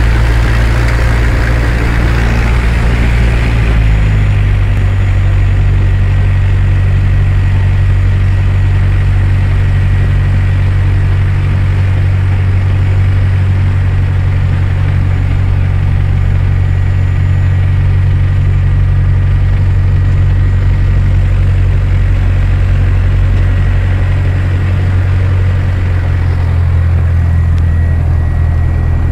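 Socata TB-9's four-cylinder Lycoming engine and propeller running steadily at taxi power, heard from inside the cabin as a loud, even drone. The engine note drops to a lower, steadier speed about four seconds in.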